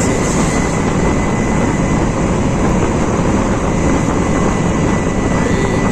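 Steady wind rush and road noise from riding a Honda Scoopy motor scooter, with wind buffeting the microphone.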